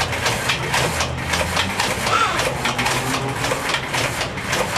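Hand-powered dynamo flashlights being pumped, one by hand and two by the oscillator's lever, giving a rapid, uneven clicking whir of their geared generators over a low hum.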